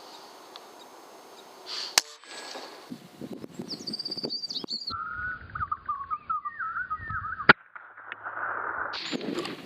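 Air rifle shots, two sharp cracks about five and a half seconds apart, the second the louder. Between them come high, wavering animal squeals.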